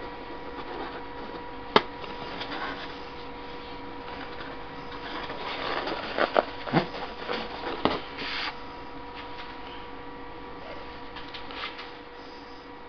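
Steady electrical hum of workshop equipment with two fixed tones. Over it come the sounds of hands working a vase in a lathe chuck: one sharp click about two seconds in, a run of rustles and knocks around six to eight seconds as a paper towel is handled, and a few small ticks near the end.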